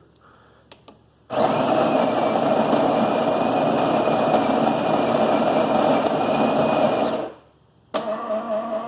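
A Miele C5200 espresso machine's built-in grinder grinding coffee beans: a loud steady whir that starts about a second in, runs for about six seconds and cuts off sharply. Near the end a quieter steady motor hum starts, as the machine moves on to brewing.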